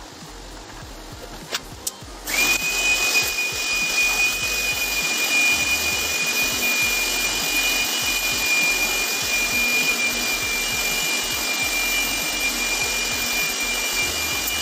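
Corded handheld electric air blower switched on about two seconds in, its motor running with a steady high whine over a rush of air, then switched off near the end. A couple of sharp clicks come just before it starts.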